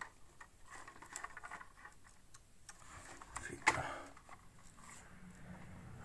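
Cables being handled and moved by hand: faint rustling with scattered light ticks and clicks, and one louder click with a brief rustle a little past halfway.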